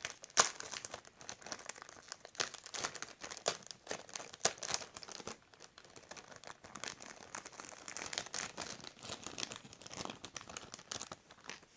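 Plastic packaging crinkling and rustling as Lego bricks are taken out of it, with irregular sharp clicks among the rustle.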